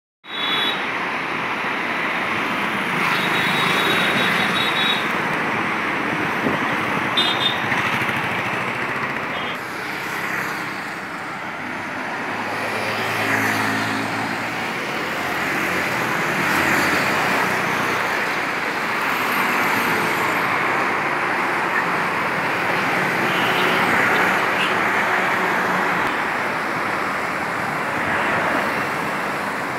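Steady road traffic: cars and motorbikes passing on a busy road. Short high beeps sound a few seconds in, and a deeper engine hum passes about halfway through.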